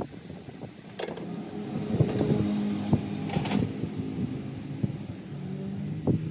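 Scattered metallic clinks and knocks of hand tools on car parts, over a low steady mechanical hum.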